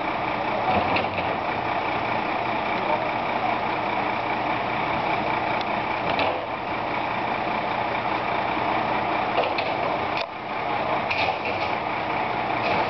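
Compaction Systems rear-loader garbage truck running steadily while stationary, with a few sharp knocks and clatters.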